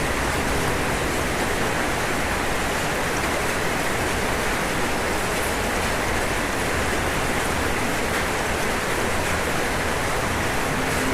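Steady rain falling on a roof, an even, continuous hiss of drops.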